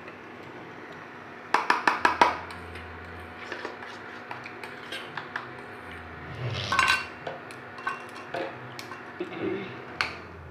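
Kitchen utensils and dishes clinking and knocking: a quick run of sharp clinks about a second and a half in, then scattered clinks and knocks, over a faint steady hum.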